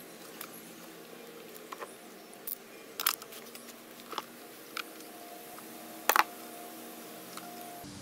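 Scattered light clicks and taps of a spark plug socket wrench on the spark plug as it is loosened and taken out of a Husqvarna 128LD string trimmer's engine, over a faint steady hum.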